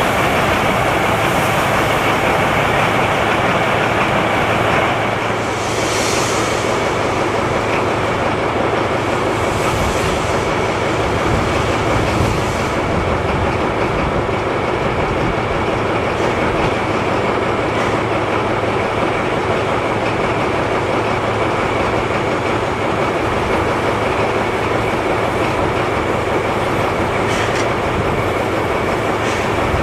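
Harz narrow-gauge steam locomotive running, a steady rail rumble with a thin continuous whine and a few brief high hisses.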